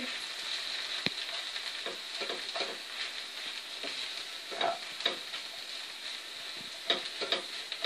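Mashed potato and fried onions sizzling in oil in a nonstick frying pan while a wooden spoon stirs and breaks them up. A steady hiss runs under it, with light scattered knocks of the spoon against the pan, the sharpest about a second in.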